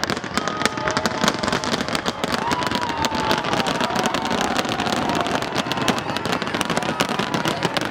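Aerial fireworks display crackling: a dense, steady stream of small sharp pops and reports.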